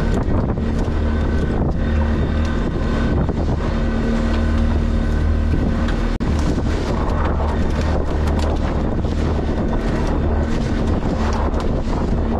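Fishing boat's motor running steadily, with wind buffeting the microphone; the sound breaks off for an instant about six seconds in.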